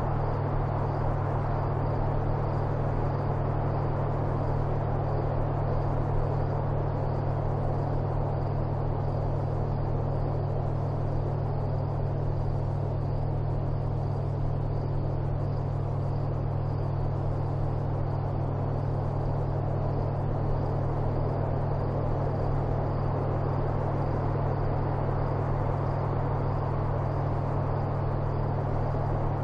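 Steady low hum and rumble with a hiss above it, unchanging throughout.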